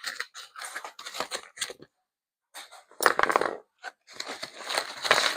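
Packing materials being handled in a bike's shipping box: irregular rustling, scraping and crinkling of cardboard and packing foam, louder in the second half.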